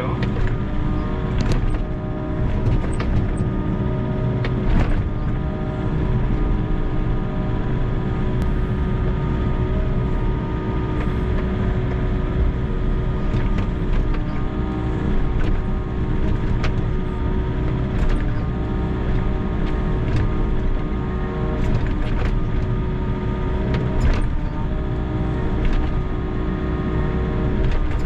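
Volvo EC60E mini excavator's diesel engine and hydraulics running steadily under load, heard from the cab, while the bucket digs into frozen ground and stony clods, giving scattered knocks and clatters.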